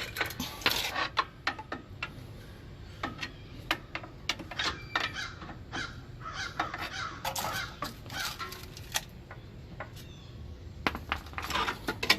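Pry bar working on a truck's air-brake shoes: irregular metal clinks, knocks and squeaky scrapes as the shoe is pried down and its rollers are worked out.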